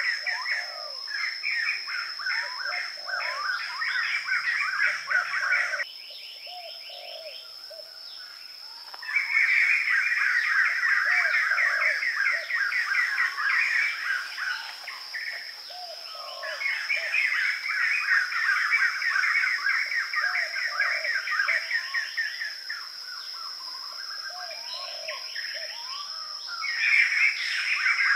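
Forest ambience of birds chirping in long, rapid runs, with a steady high-pitched whine underneath. The chirping stops abruptly about six seconds in and returns loudly about three seconds later.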